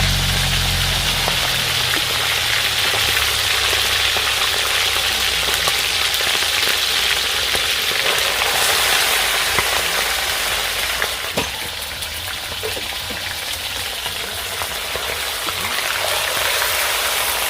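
Meat frying in a cooking pot: a steady, crackling sizzle that eases a little in the second half.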